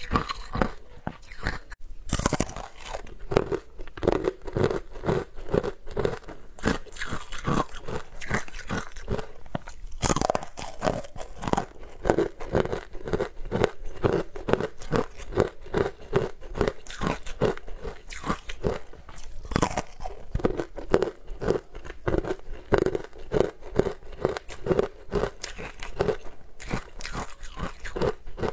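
Green-coloured frozen sweet ice being bitten and chewed close to a microphone: continuous crisp crunching, about three to four crunches a second.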